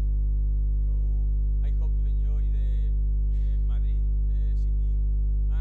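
Loud, steady electrical mains hum from a faulty audio feed, with a faint, muffled voice talking underneath it.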